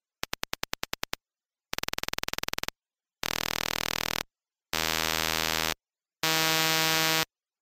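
Audio pulse trains, each about a second long with short gaps between, the pulse rate doubling each time from 10 to 20, 40, 80 and 160 per second. The slow trains are heard as separate ticks, the 40-per-second train sits on the edge between ticks and a continuous tone, and the fastest become a buzz that is higher-pitched with each step.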